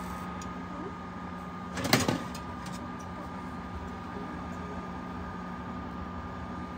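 Open oven humming steadily, with one sharp metallic clank about two seconds in.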